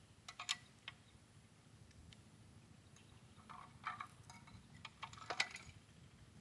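Small clicks and knocks in three short clusters: about half a second in, around four seconds in and around five and a half seconds in, over a faint low rumble, as of small objects being handled.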